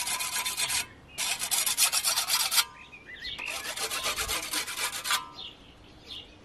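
A sharpening stone rubbed along the freshly peened edge of a steel scythe blade in three passes of quick scraping strokes, taking off the thin drawn-out wire edge (the 'needle') so the scythe cuts right away. A few faint bird chirps near the end.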